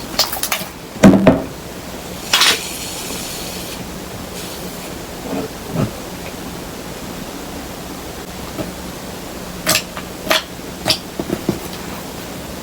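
Slime being made by hand with containers and utensils: scattered clicks and taps, a loud thump about a second in, and a short hiss like a spray about two and a half seconds in.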